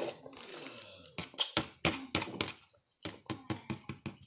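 Eating sounds: a brief soft slurp of noodles, then a run of short sharp clicks and taps, three or four a second, from chewing and from a metal fork against a plastic bowl.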